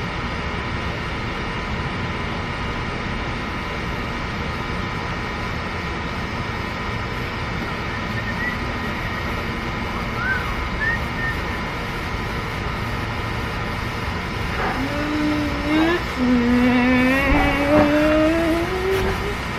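A steady outdoor background hum with a few faint short high chirps, then, from about fifteen seconds in, a child's wordless voice calling close by in long sliding tones that rise in pitch.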